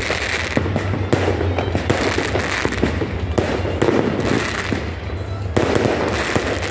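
Fireworks going off: many sharp bangs and crackles in quick succession as rockets launch and burst.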